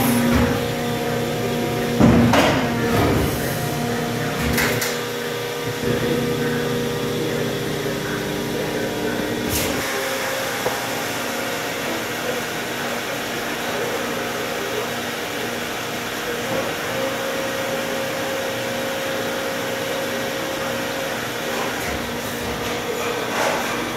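Steady drone and hum of plastic injection moulding machinery running on a factory floor, with a few sharp clacks in the first ten seconds.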